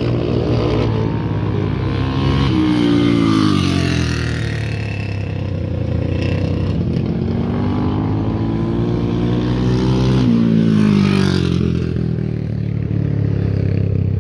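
Racing motorcycle on a dirt flat track, its engine revving up and down as it goes through the turn and onto the straight. The pitch falls about three seconds in, then rises and falls again around ten seconds in, over a steady low drone.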